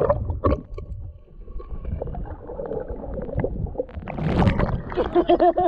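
Muffled underwater sound of a waterproof action camera submerged in shallow sea water: a splash as it goes under, then low rumbling and gurgling water with small clicks. Near the end comes a short run of quick, muffled pitched pulses.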